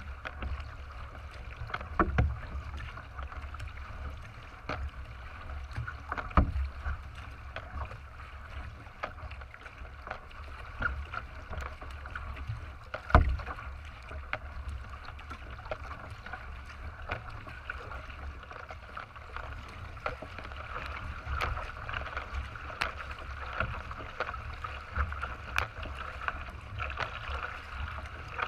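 Water splashing and rushing along the hull of a racing kayak paddled at speed, with a steady low rumble underneath. A few sharp knocks stand out, the loudest about two, six and thirteen seconds in.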